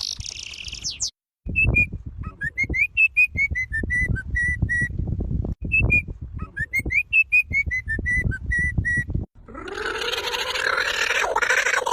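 A bird whistles a clear phrase of notes that rise and then step down, given twice, each about three and a half seconds long, over a low rumble. Before it, a second of high chirping cuts off. Near the end, a louder, noisier sound with a rising tone starts.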